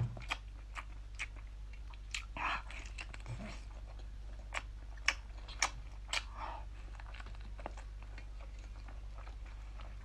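A person biting and chewing a large piece of chili-coated abalone close to the microphone: many short wet mouth clicks and smacks, thinning out after about seven seconds.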